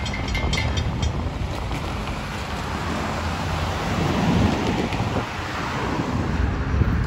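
Cars driving over the railroad crossing close by, with tyre and engine noise that is loudest as a large SUV passes midway, and wind on the microphone. A railroad crossing bell rings rapidly and stops about a second in.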